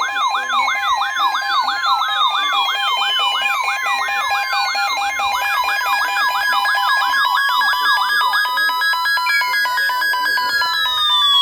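Several electronic emergency-alert tones sound at once. A fast whooping, siren-like tone sweeps about three times a second and stops about eight and a half seconds in, over steady alert tones, while slow falling and rising pitch glides slide across them.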